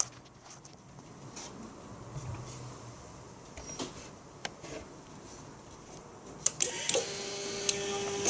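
A few faint clicks, then about six and a half seconds in, sharp clicks and a steady electrical whir start up from a Suzuki GSX-R600 K6 motorcycle that won't start. This is the unexplained weird noise the bike makes while it shows a string of fuel-injection fault codes (C13–C31).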